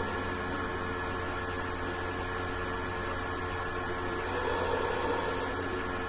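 Steady hiss with a low electrical hum and a faint high whine, unchanging throughout; a soft swell of noise comes about four and a half seconds in.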